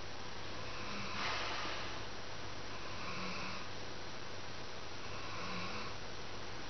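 Heavily pregnant dog breathing slowly and audibly while lying at rest, with a soft snore-like sound on each breath about every two seconds. One louder breathy gust comes about a second in.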